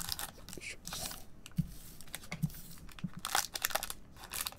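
Foil wrappers of Panini Donruss soccer card packs crinkling as they are handled, with their tops snipped open by scissors. Irregular crackles and a few sharp snips.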